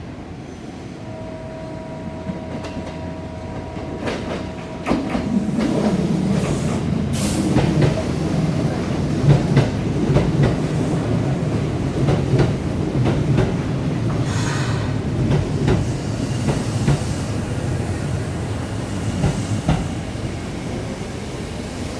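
Train pulling into a station platform: a low rumble builds about five seconds in and stays, with wheels clicking over rail joints and brief high-pitched screeches around seven and fourteen seconds in. A steady two-note tone sounds during the first few seconds.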